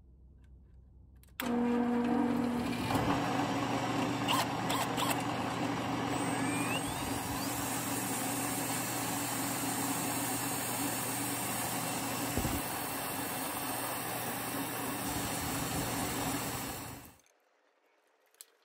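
Crimped-steel wire cup brush spinning in a drill press while a bolt turned in a cordless drill is pressed against it to clean it: a steady motor whir with a bright hiss of wire on steel. It starts suddenly about a second and a half in and stops suddenly near the end.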